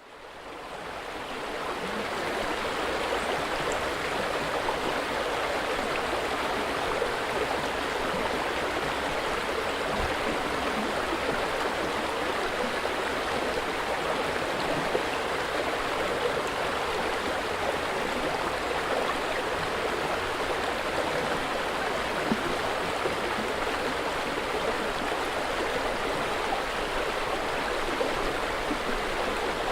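River water sound effect: a steady rush of flowing water. It fades in from silence over the first couple of seconds.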